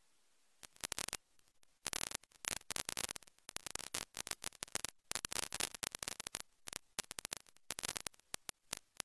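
Harsh, irregular crackling like static or clipping in the audio, starting about half a second in: dense sharp crackles across every pitch, broken by short gaps.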